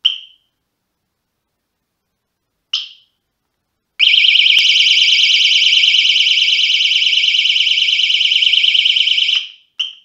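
Push-button bicycle alarm set to its third, high-alert mode: two short chirps a few seconds apart, then a loud, continuous, fast-warbling siren for about five seconds that cuts off suddenly, followed by a few short beeps near the end.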